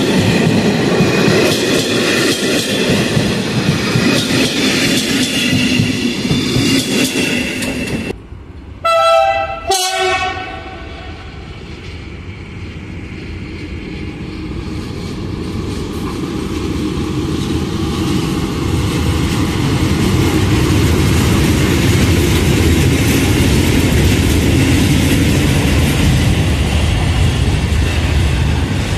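Passenger coaches rolling past at speed. About nine seconds in comes a short horn blast, then a low diesel rumble that grows steadily louder as a PKP SM42 'Stonka' diesel shunting locomotive approaches and runs past, hauling hopper wagons and a track-maintenance machine.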